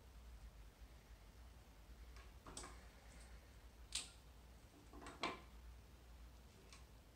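A few faint clicks and light knocks from handling a carnation: the stem tapping the glass vase as it is pulled out, then set down on the wooden crate. The sharpest click comes about four seconds in, over a low, steady room hum.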